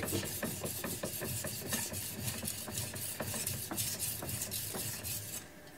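Knife blade stroked rapidly back and forth on a 2000-grit sharpening stone, a gritty scraping with each stroke, as the warmed-up stone starts to cut; the strokes stop shortly before the end.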